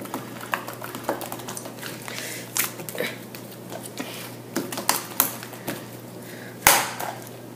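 Soft slime being squeezed and kneaded by hand: irregular small clicks and pops, with one louder squish near the end.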